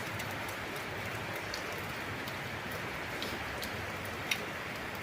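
A steady hiss like rain with a few light clicks scattered through it, one sharper tick about four seconds in.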